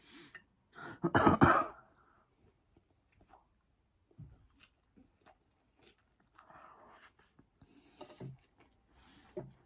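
Close-up eating sounds of noodles and chicken balls: scattered chewing and mouth clicks, with one loud burst of noise about a second in lasting about half a second.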